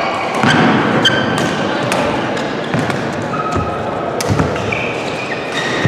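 Badminton rally: several sharp racket strikes on the shuttlecock, with shoes squeaking briefly on the court floor and thudding footfalls.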